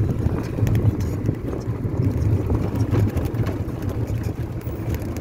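Auto-rickshaw engine running steadily with a low hum while the vehicle drives, heard from inside its open-sided cabin.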